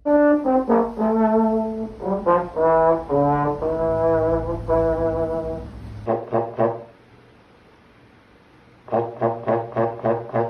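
Trombone-like brass notes playing a short melodic phrase of separate held notes, stopping about six seconds in; after a brief quiet gap, a quick run of short staccato notes, about four a second.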